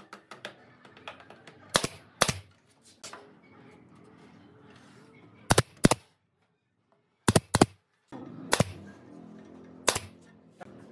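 A series of sharp knocks, about eight, several coming in pairs a third of a second apart, with a second of dead silence near the middle.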